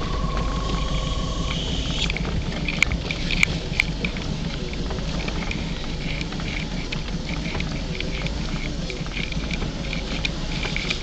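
Car driving, its engine and tyre rumble heard from inside the cabin, with short high chirps repeating irregularly over it from about two seconds in.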